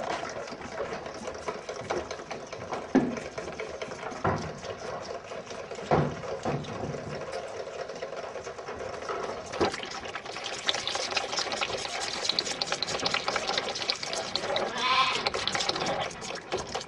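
Calves bawling in a dairy barn over a steady mechanical hum, with a few short knocks; the noise grows louder about two-thirds of the way through.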